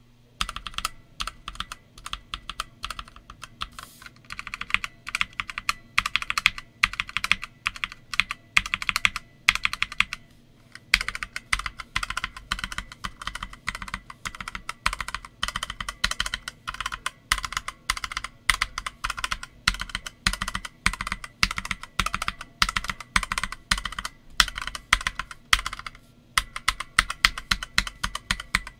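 Typing on a Redragon K599 Deimos mechanical keyboard with Redragon RD Red linear switches and PBT OEM-profile keycaps: a steady run of fast keystrokes with a couple of short pauses, one about ten seconds in and one near the end.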